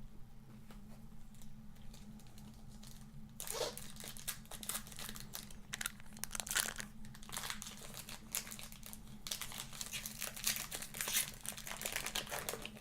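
Panini Optic basketball card pack's foil wrapper crinkling and tearing open, starting a few seconds in after a few faint clicks of cards being handled.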